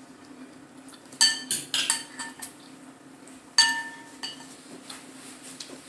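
Cutlery clinking against dishes while eating: a quick run of clinks, then a single louder ringing clink a couple of seconds later, over a faint steady low hum.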